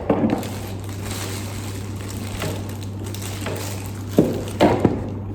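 A steady low hum, with three short knocks about four to five seconds in, from handling the fog lamp kit parts.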